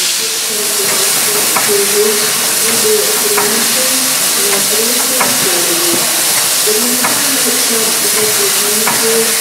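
Steam hissing loudly and steadily from an Er-class Soviet steam locomotive around its chimney, with a wavering tone beneath the hiss and a few faint ticks.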